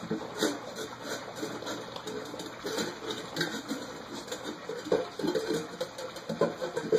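Several puppies lapping and slurping goat's milk from a bowl, a busy, irregular wet patter with a few short whimpers.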